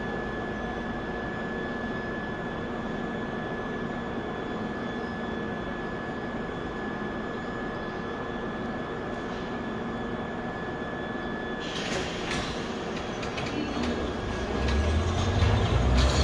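London Underground Bakerloo line 1972-stock tube train standing at the platform with a steady high whine, which stops about twelve seconds in. The train then starts to pull away, a low rumble building over the last couple of seconds.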